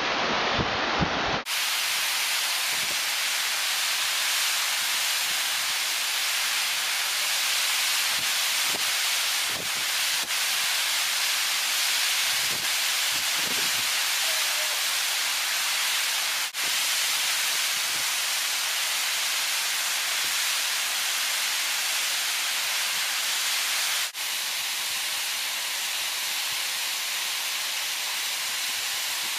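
Mountain waterfall rushing as a steady, even hiss of falling water, with a few brief low rumbles in the first half.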